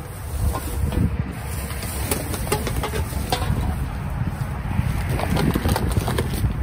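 Items rustling and clicking as they are handled and moved around in a dumpster, with wind buffeting the microphone as a low rumble.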